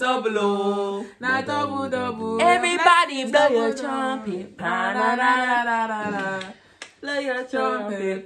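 Women's voices singing a song together, loud held notes that bend up and down, with a short break about two-thirds of the way through.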